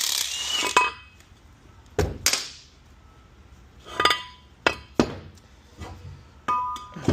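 A power ratchet runs for the first moment and stops, then metal tools and parts clink and knock about eight times, a few of them ringing briefly, as a transmission is taken apart by hand.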